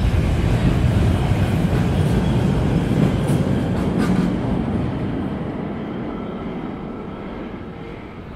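Brussels Metro train pulling away from the platform: a loud low rumble of wheels on rail that fades steadily over the last few seconds as it goes off into the tunnel, with a few faint clicks along the way.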